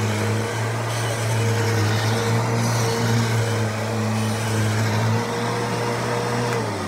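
Kirby G5 upright vacuum cleaner running on carpet: a steady motor hum with rushing air. Near the end it is switched off and the motor's pitch falls as it winds down.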